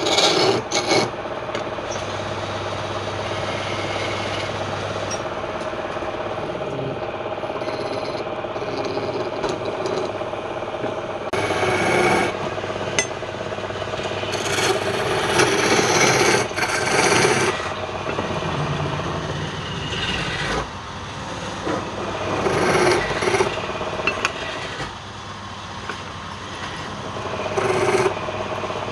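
Wood lathe running with a steady hum while a tool scrapes against the spinning wood, in repeated louder rasping spells.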